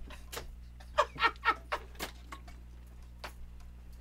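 A man laughing in short breathy bursts, mostly silent wheezes with a few voiced pulses, over a steady low electrical hum.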